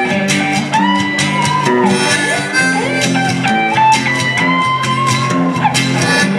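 Live blues band: a harmonica cupped to a vocal mic plays a solo of held and bent notes that slide in pitch, over electric and acoustic guitar chords.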